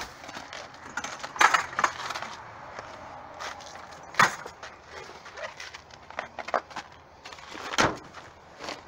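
Irregular crunches and knocks of someone stepping about on icy, snow-crusted pavement and handling cardboard boxes, the sharpest knocks about four seconds in and near the end.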